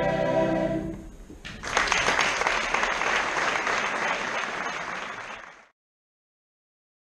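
A choir's held final chord dies away, then an audience applauds for about four seconds, the applause fading out near the end.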